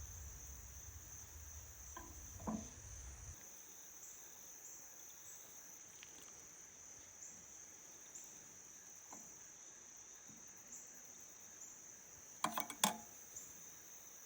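Crickets chirring in a steady high-pitched chorus. A low rumble stops about three seconds in, there are a couple of light knocks just before that, and a quick cluster of sharp clicks near the end is the loudest sound.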